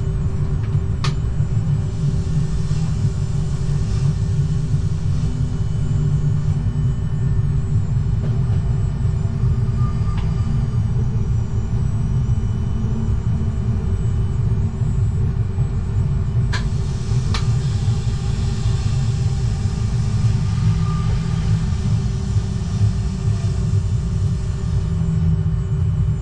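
RER D Z20500 double-deck electric train running steadily, heard from the cab: a continuous low rumble of wheels on rail with a steady hum. A few sharp clicks cut through, one about a second in and two close together past the middle.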